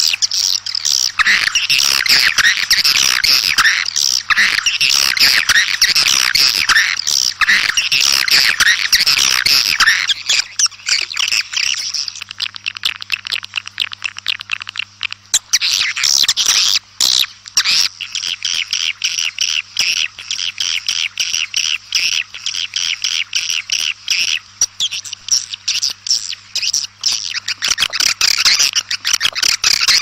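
A flock of swiftlets twittering in dense, overlapping chirping calls, the flock-calling sound used to lure swiftlets to nest houses. The calls thin out for a few seconds about halfway through, then pick up again, over a faint steady low hum.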